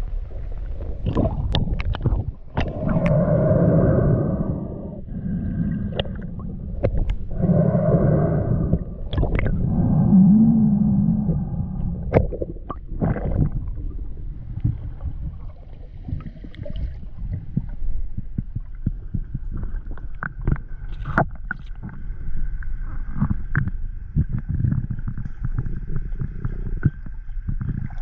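Water gurgling with scattered sharp clicks and knocks, and three louder surges in the first half. A faint steady high tone sets in after about twenty seconds.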